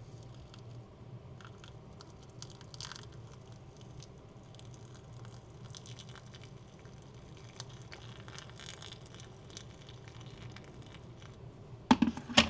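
Freshly heated water poured from a kettle into a ceramic hotel teacup, a soft trickle, followed near the end by two sharp clinks of china.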